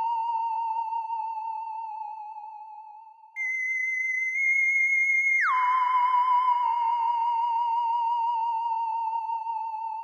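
Synthesized emergency-alert tone: a wavering electronic tone that fades out, then a higher tone starts about three seconds in, drops suddenly to a lower pitch halfway through and slowly sags and fades.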